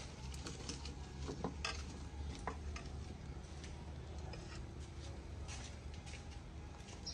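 Kitchen utensils knocking and scraping against pots and dishes during cooking, a scattering of light clinks over a steady low hum.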